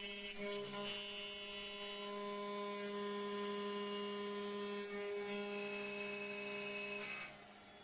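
CNC copy router spindle milling an aluminium window profile: a steady pitched whine made of several tones, dipping briefly twice, then stopping sharply about seven seconds in.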